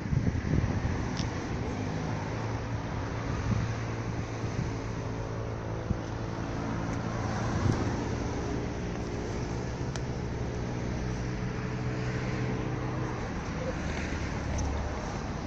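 An engine running at a steady pitch, which stops about thirteen seconds in, with wind noise on the microphone.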